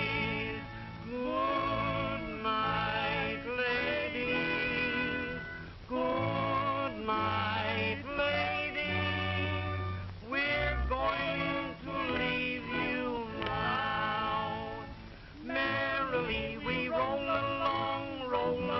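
Two voices singing a song together in close harmony over instrumental accompaniment, the held notes wavering with vibrato.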